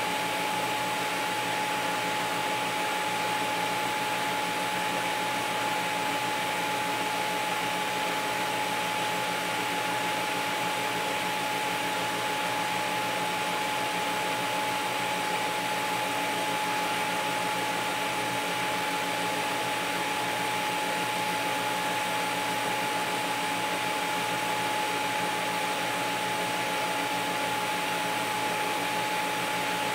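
TIG arc on stainless sanitary tubing from a Miller Dynasty 350 at a set, unpulsed current: a steady hiss with a constant high whine through it, level and unbroken.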